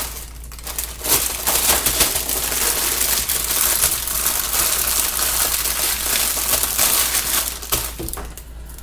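Clear plastic bags crinkling and rustling as a bundle of small bags of diamond-painting drills is pushed back into a larger plastic bag by hand. The crinkling is continuous and dies down near the end.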